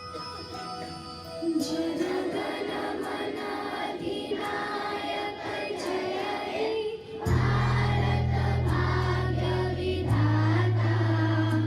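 Children singing a patriotic song together as a choir, with musical accompaniment. Steady low accompanying notes come in about seven seconds in.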